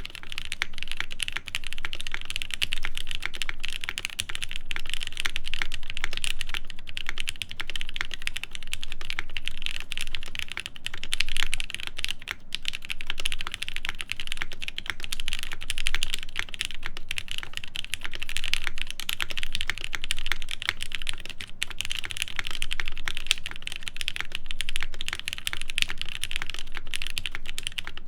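Steady fast typing on a Cloudline prototype top-mount mechanical keyboard with an aluminium half plate, lubed Gateron Ink linear switches with switch films, and GMK Rudy ABS keycaps. It is a dense run of keystrokes with only brief pauses.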